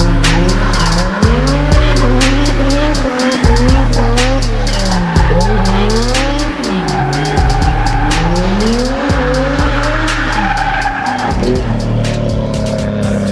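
Toyota JZX90 drifting: the engine revs up and down over and over while the tyres squeal. Music with a heavy bass line and a steady beat plays over it.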